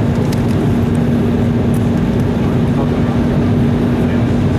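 Cabin noise inside an Embraer E190 on final approach: the steady rush of airflow and the wing-mounted General Electric CF34-10E turbofans at approach power, with a steady low hum running under it.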